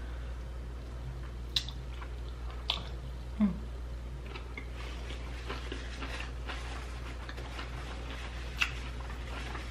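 Close-up mouth sounds of a person eating a piece of sushi roll: soft chewing with a few sharp mouth clicks, and a brief hummed "mm" about three and a half seconds in.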